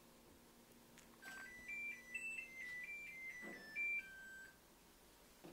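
Combination microwave oven's electronic chime playing a short beeped tune of about a dozen notes, signalling that the baking cycle has finished.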